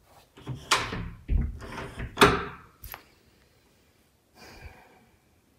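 Interior wooden door being pushed shut: a run of knocks and rattles lasting about two seconds, then a short sharp click.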